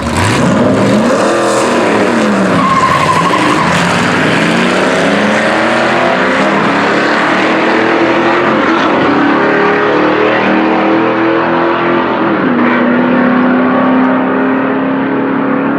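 Drag-racing car engine at full throttle, starting suddenly. Its pitch climbs and drops back at each gear change, several times, then holds steady near the end.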